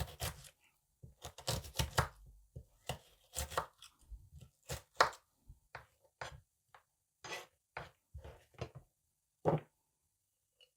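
Knife chopping an onion: separate, irregular strokes, about one or two a second, that stop shortly before the end.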